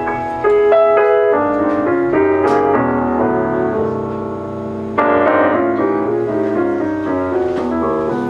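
Jazz piano trio playing: grand piano chords over upright bass, with strong new chords struck about half a second in and again about five seconds in.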